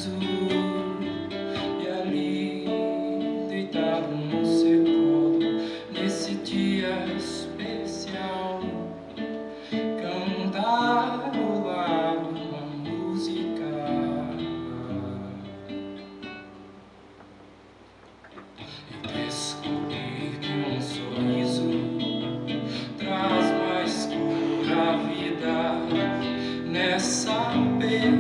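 Acoustic guitar music with sustained melodic notes. It thins out to a quiet pause about two-thirds of the way through, then picks up again.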